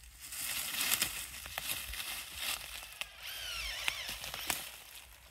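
Boots crunching and rustling through dry fallen leaf litter in irregular steps, with crackling. A brief wavering squeak sounds a little past the middle.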